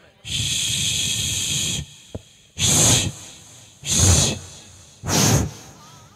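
Forceful breathy hissing into a microphone: one long exhaled hiss, then three shorter sharp breaths about a second apart.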